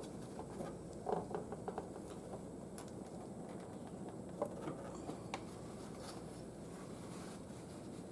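Light handling noises while working on a mower: a quick cluster of small clicks and taps about a second in, then a couple of single clicks midway, over a faint steady background hum.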